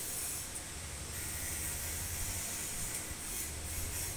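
Steady background hiss with a low hum underneath; no distinct event stands out.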